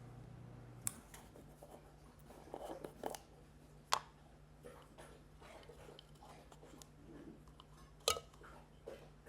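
Scattered clicks, taps and knocks of kitchen containers and utensils being handled, the sharpest about a second in, about four seconds in and about eight seconds in, over a steady low hum.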